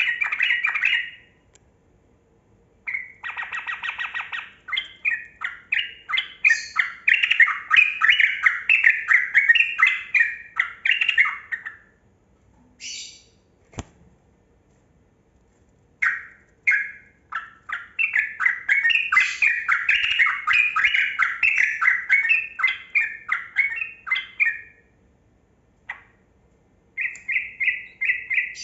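Yellow-vented bulbul (trucukan) singing long runs of quick, chattering, bubbling notes: two long phrases of several seconds each, with a pause between them, and a short burst near the end. A single sharp click falls in the pause.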